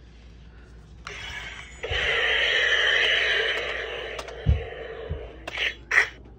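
Toy laser tag gun's electronic sound effect: a loud hissing blast that starts about a second in, swells, then fades over the next couple of seconds. Two dull thumps and two short sharp sounds follow near the end.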